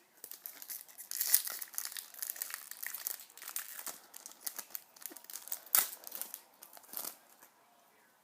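Plastic wrapper of a hockey card pack being torn open and crinkled, a busy run of crackling with a few sharp louder crackles, dying away near the end.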